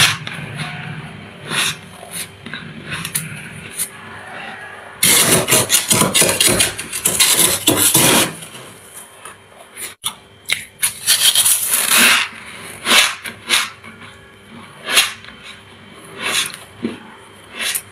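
Freezer frost crunching as it is bitten and chewed, in sharp separate crunches, with a metal spoon scraping frost off the freezer's inner walls in two long, dense stretches around the middle.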